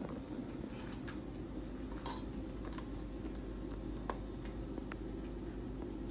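Light, scattered clicks and taps of a utensil against toasted baguette slices as pesto is spread, over a steady low hum.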